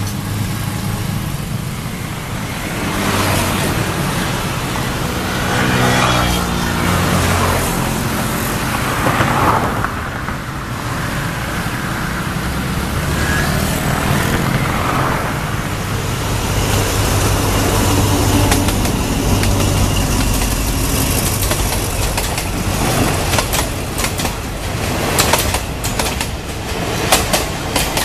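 Road traffic at a railway level crossing: car and motorcycle engines running, with one vehicle going by about six seconds in. Near the end a rapid series of clicks begins as train wheels start clattering over the rail joints.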